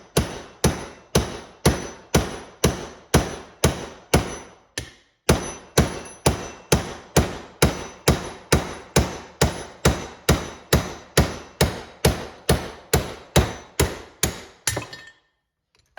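Hammer blows on a metal bushing driver, driving a transmission bushing through its bore. The blows come steadily at about two a second, each with a short metallic ring, with a brief pause about five seconds in. They stop shortly before the end.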